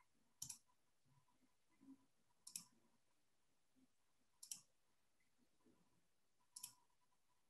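Four faint computer mouse clicks, about two seconds apart, with near silence between them.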